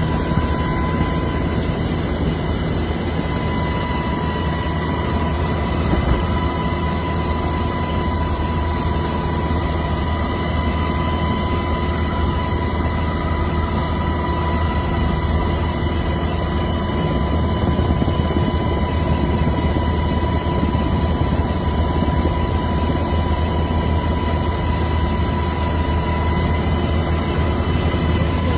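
Ship's engine droning steadily, with a constant high whine above the low hum.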